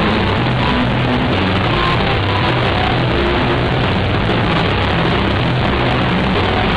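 Live rock trio of electric guitar, bass guitar and drum kit playing loud and dense, the bass notes changing underneath.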